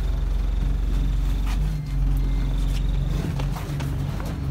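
Bus engine running, heard from inside the passenger saloon as a steady low drone that shifts slightly in pitch, with a few short clicks and rattles.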